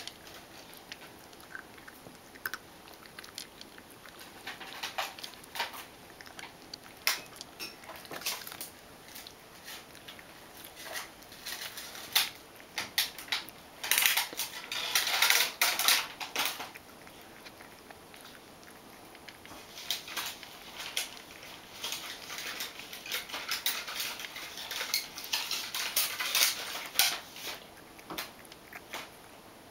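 Ragdoll cat crunching dry kibble from a ceramic bowl: runs of crisp crunches with pieces clinking against the bowl, in two long busy spells through the middle and latter part, with quieter pauses between.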